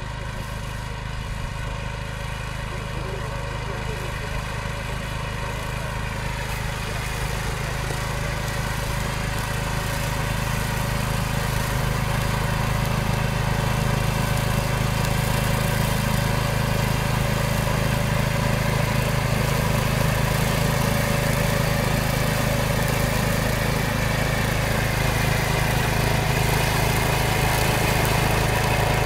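DAKR two-wheel tractor with a front-mounted mower running steadily while cutting tall dry grass, growing louder as it approaches.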